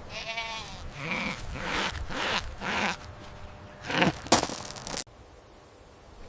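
Goat bleating: one long wavering bleat at the start, then a few shorter calls and noises.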